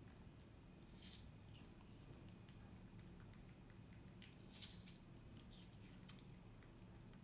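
Faint wet smacking and squishing of a baby monkey chewing watermelon: scattered small clicks, with two louder smacks about a second in and about four and a half seconds in.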